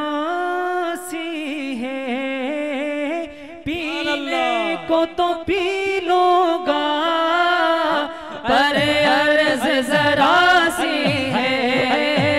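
Male voices singing a naat through microphones over a steady held drone note, unaccompanied by instruments. The singing dips briefly about four seconds in and grows louder from about eight seconds in.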